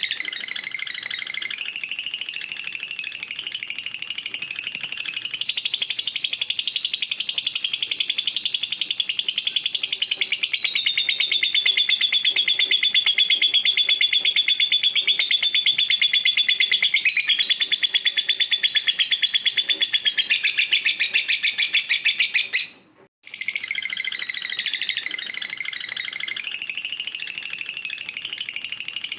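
Lovebird's kekekan song: a long, unbroken, very rapid high-pitched chattering trill, loudest through the middle. It stops abruptly for a moment a few seconds before the end, then starts up again.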